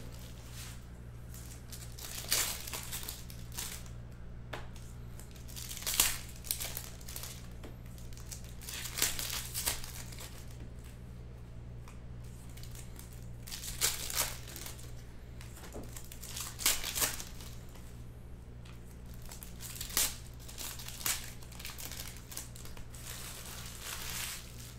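Shiny foil packs of 2015-16 Upper Deck O-Pee-Chee Platinum hockey cards being torn open and crinkled by hand, in short crackling bursts every few seconds. A steady low hum runs underneath.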